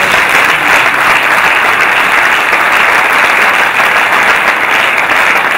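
Audience applauding: a loud, steady round of clapping.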